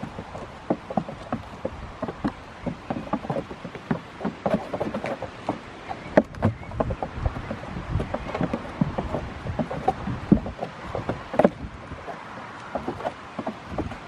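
Goat kids' hooves clattering and scuffling on wooden platform boards as they push and butt each other, a dense run of irregular knocks with a few louder ones.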